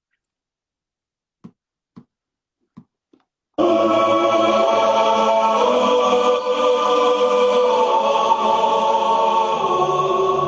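A few faint ticks, then, about a third of the way in, music starts abruptly and loud: held choir-like chords with many steady tones.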